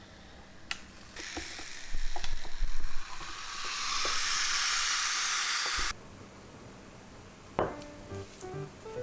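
Food sizzling on the hot plates of a waffle maker, with a few knocks early on. The sizzle is a steady hiss that cuts off suddenly about six seconds in, and light background music begins near the end.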